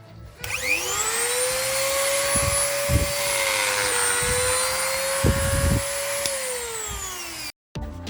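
Mini angle grinder switched on, spinning up about half a second in, running at a steady whine with a few low thumps, then winding down near the end before the sound cuts off. This is the grinder that runs noisy, hot and vibrating.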